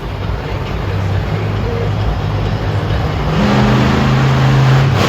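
Monster truck engine running loud, then revving up harder about three and a half seconds in.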